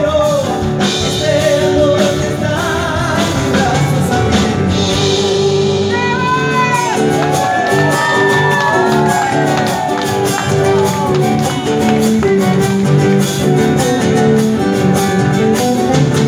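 Argentine folk band playing live through the stage PA during a sound check: strummed acoustic guitars and accordion over a steady bass, with singing. A few rising-and-falling vocal calls sound over the music near the middle.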